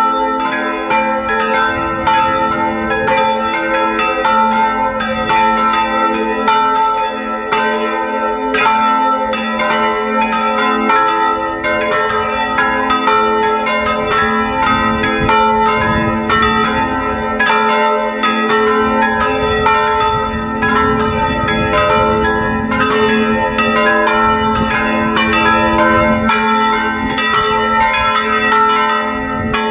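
Several church bells cast by the Felczyński foundry, swinging and ringing together. Their strikes overlap in a steady, dense peal of several strokes a second.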